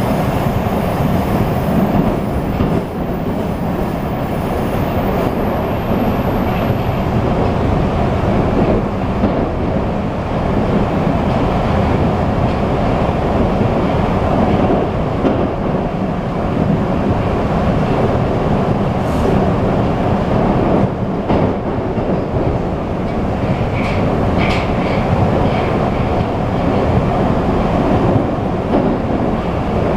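Moscow-2020 (81-775/776/777) metro train running between stations, heard inside the car: a steady loud rumble of wheels and running gear with a few brief knocks.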